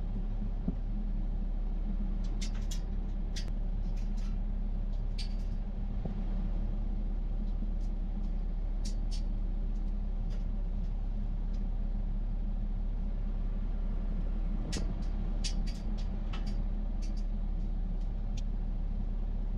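Earthmoving machine's engine running steadily, with light clicks and clinks now and then.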